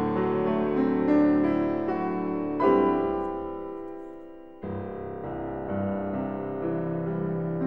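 Solo piano playing slow, sustained chords in a classical recording. A loud chord struck about two and a half seconds in rings and fades away, and a new, softer chord enters a little past halfway.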